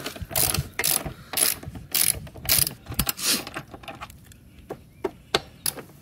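Hand ratchet with a hex socket clicking in quick back-and-forth strokes, about two a second, as it unscrews the front wheel axle of a Kawasaki ZX6R; after about three and a half seconds it drops to a few scattered single clicks.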